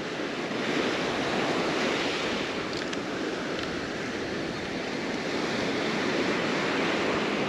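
Surf breaking and washing up onto a sandy beach: a steady rush of waves.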